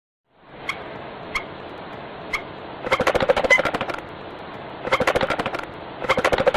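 Marabou stork clattering its bill: a few single clacks, then three rapid rattling runs of clacks, over a steady background hiss.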